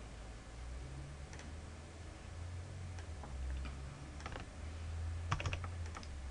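A handful of faint computer mouse clicks, scattered and irregular, over a low steady hum.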